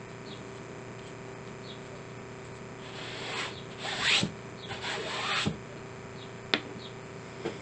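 Hands rubbing and rustling the fabric- and paper-wrapped jumbo paperclip for about two seconds, starting about three seconds in and loudest around four seconds, then a single sharp tap near the end as it is set down on the table.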